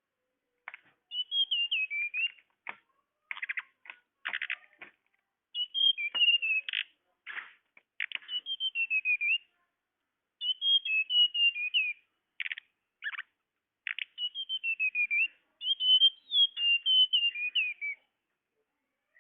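Tledekan (flowerpecker) calls from a lure recording: bouts of sharp, rapid chip notes alternate with thin, high warbled phrases that step down in pitch, with short pauses between bouts.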